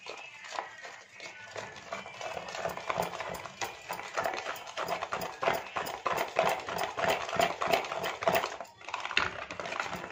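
Wire whisk beating a thick semolina cake batter in a stainless steel bowl, the wires clicking rapidly and rhythmically against the bowl, with a short pause near the end.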